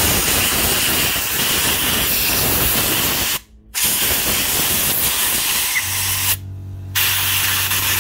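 Compressed air from a blow gun blasting into a vacuum cleaner's motor and fan to clear grit suspected of jamming it. It comes as three long hissing blasts with short breaks about three and a half and six and a half seconds in. A steady low hum sets in about six seconds in.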